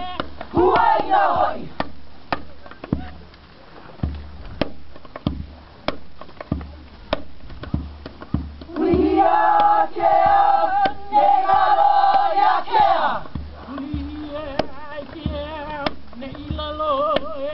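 Hawaiian hula kahiko chant with a steady beat of struck percussion. The beats run throughout; the chant comes in loudly in the middle with long held notes, then continues more softly near the end.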